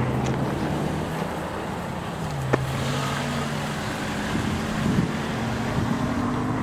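Steam locomotive working under load as it pulls a passenger train away: a steady rumble with a few held low tones, and one sharp click about two and a half seconds in.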